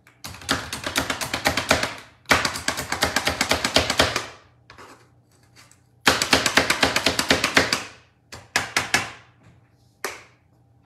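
Pampered Chef food chopper being pumped rapidly on a cutting board, several quick tapping strokes a second, as it finely chops broccoli. There are three long runs of strokes, then a few short ones near the end.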